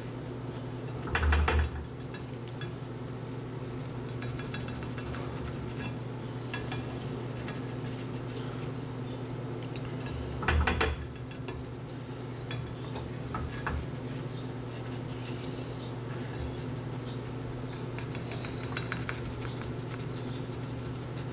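Cookware and utensils clattering while cooking: two loud knocks of a pan or utensil, about a second in and again about ten seconds later, with light clinks and scrapes between, over a steady low hum.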